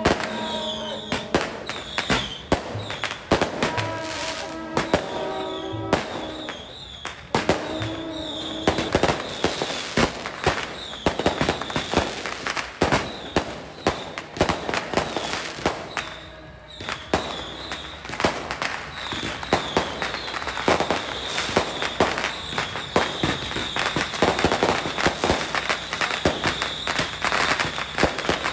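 Firecrackers going off in dense, rapid crackling strings throughout. Through roughly the first nine seconds, a pitched melody also runs under the cracks.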